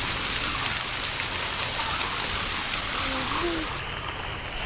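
Water from splash-pad spray jets rushing and splattering in a steady hiss that thins out a little before the end.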